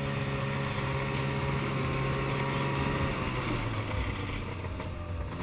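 Snowmobile engine running at a steady pitch, then dropping a little and easing off about three and a half seconds in as the sled slows and pulls up.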